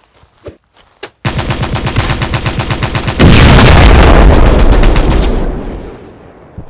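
Film sound effects: a burst of rapid machine-gun fire, about ten rounds a second, lasting about two seconds, cut off by a loud explosion that rumbles and fades over the next two to three seconds. A few faint clicks come before the gunfire.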